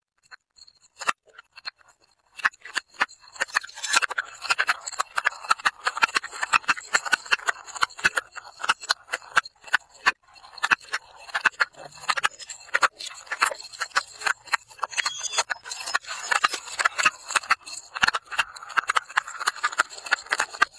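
Filled plastic cylinders rolling and tumbling down concrete steps, making a dense clatter of small knocks and rattling. It starts as a few scattered clicks and turns into a continuous rattle after about two seconds.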